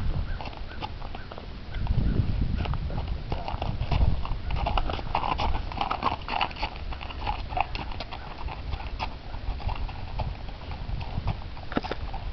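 Horse's hooves clip-clopping on a gravel road in a steady rhythm, growing fainter near the end as the horse moves away.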